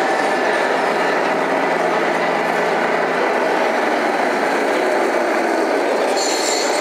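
Steady background din of a busy exhibition hall: a constant wash of crowd noise and hall ambience.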